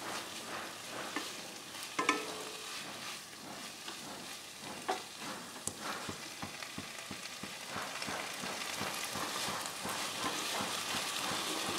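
Malabar spinach, potato and tomato sizzling in a kadai while a wooden spatula stir-fries them, with scattered scrapes and light knocks of the spatula on the pan. The sizzle grows a little louder in the later part.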